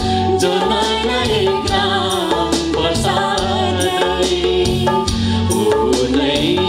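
A song sung into microphones over a steady drum and bass backing.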